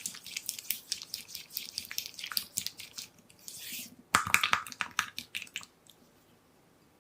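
Kitchen handling sounds during cheesecake preparation: a quick run of clicks and taps with short scraping swishes, getting louder for a moment about four seconds in, then stopping about a second before the end.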